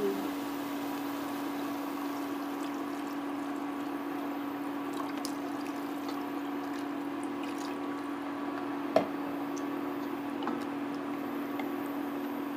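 Water poured from a plastic pitcher into a pan of sautéed ingredients, over a steady low hum. One sharp knock comes about nine seconds in.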